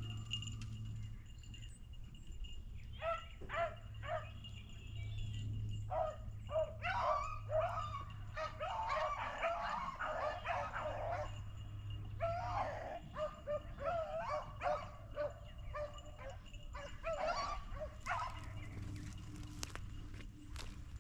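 Beagles baying on a rabbit's scent trail: a dense run of overlapping calls from about three seconds in until about thirteen seconds, then a few more near the end.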